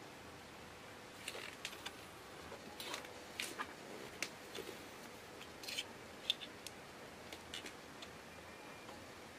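Light clicks and clinks of small steel hand tools being handled, a vernier caliper and a socket picked up and set against each other. A dozen or so sharp ticks come scattered unevenly through the middle, the sharpest about six seconds in.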